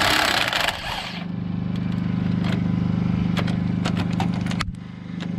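Impact wrench hammering on an alternator mounting bolt, a loud rattling burst that stops about a second in. A steady low engine-like hum runs underneath, with scattered light metallic clicks later on.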